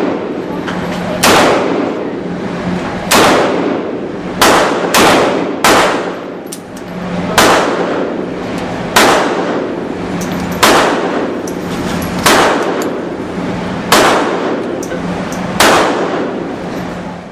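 Handgun shots on an indoor range, eleven of them, mostly about a second and a half apart with a quicker run of three partway through. Each shot rings on in the hall's echo over a steady low ventilation hum.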